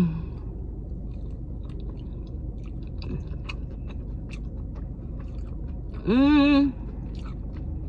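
A person chewing a breaded fried chicken tender close to the microphone, with many small wet mouth clicks. About six seconds in comes one short drawn-out hum with a wavering pitch.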